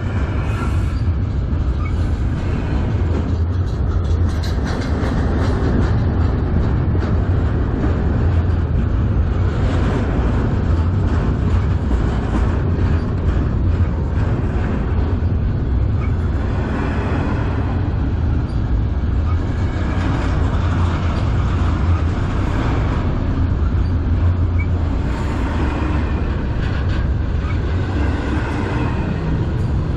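Double-stack intermodal freight cars rolling past at close range: a steady low rumble of steel wheels on the rails, with wheel clatter swelling every few seconds as each car's wheel sets go by.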